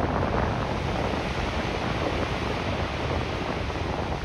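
Choppy surf breaking and washing on the shore in strong wind, with wind buffeting the microphone as a steady low rumble under the wash of the waves.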